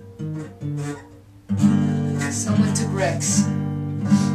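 Steel-string acoustic guitar: two single notes picked, a short quiet gap, then from about a second and a half in, steady strummed chords.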